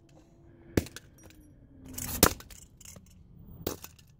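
Claw hammer striking a toy car on concrete, smashing it apart: three sharp metallic blows about a second and a half apart, the middle one loudest, with small clinks of loose pieces between.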